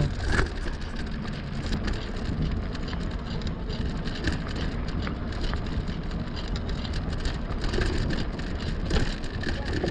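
Riding noise from an e-bike on the move: wind rushing over the microphone and the fat tyres rolling on the trail surface, a steady noise with a fine crackle running through it.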